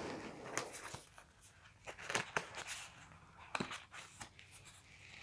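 Tarot cards being handled and drawn from the deck: a scatter of light clicks and rustles.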